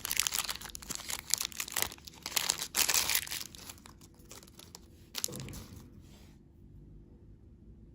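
Candy wrapper crinkling and tearing as packaging is unwrapped, dense for about three seconds and then thinning, with one soft thump about five seconds in, dying away about six seconds in.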